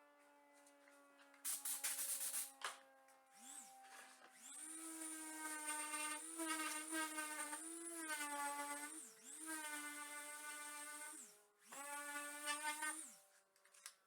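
CNC router spindle whining steadily, cutting wood in three spells. Each spell adds a harsher, buzzier tone with a high whistle, and the pitch dips briefly as each one starts and stops. There is a rattle of clicks a couple of seconds in.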